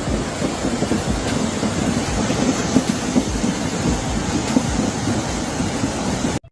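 Heavy storm rain and strong wind as a dense, steady roar, with low gusts thumping on the microphone. It cuts off abruptly just before the end.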